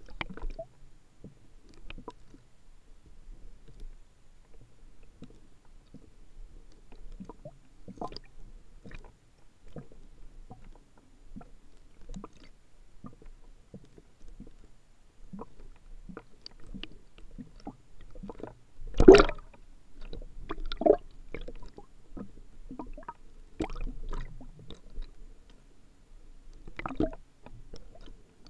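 Muffled underwater water movement heard through a submerged camera, with scattered soft clicks and knocks. One loud knock comes about two-thirds of the way through.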